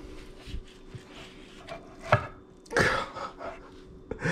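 Gloved hands working a smoked beef rib on a wooden cutting board, the bone pulling cleanly out of the meat with soft wet rubbing and tearing sounds, a sharp tick about two seconds in and a louder rustle just before three. The bone slides free easily, a sign that the rib is cooked tender.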